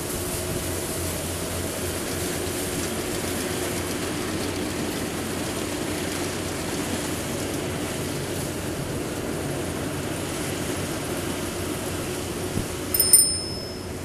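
Yanmar YH850 combine harvester running steadily, its engine and machinery humming while grain is unloaded into sacks. Near the end a brief high-pitched ringing squeal cuts through.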